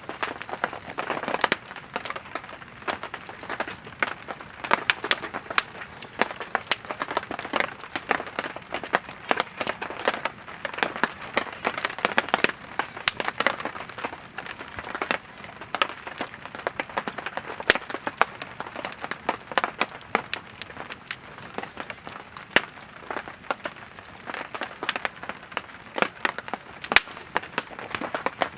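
Firewood burning in a campfire: steady hissing with many irregular crackles and sharp pops throughout, a few louder snaps standing out.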